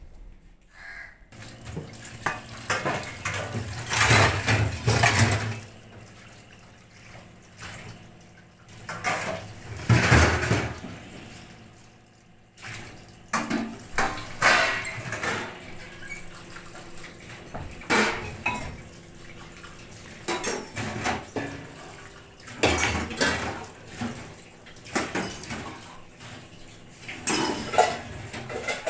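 Dishes being washed at a stainless steel kitchen sink: steel utensils clattering and knocking against each other and the sink, with tap water running in irregular bursts.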